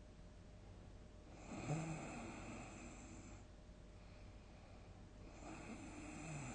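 Person snoring: two snores about four seconds apart, the first opening with a sharp snort about a second and a half in, the second starting near the end.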